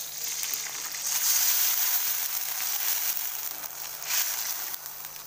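Water poured into a hot wok of browned shallots, garlic and lemongrass frying in oil, sizzling loudly as it hits the oil. The hiss swells about a second in, surges again briefly near the end, then dies down as the water settles.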